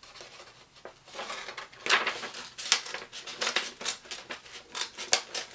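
Scissors cutting through a sheet of green construction paper in a run of short, quick snips, thickest from about two seconds in.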